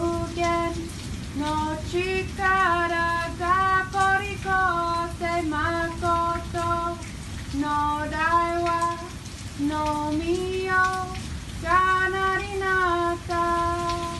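A single high voice singing a slow melody without instruments, holding each note in short phrases, over a steady rain-like hiss.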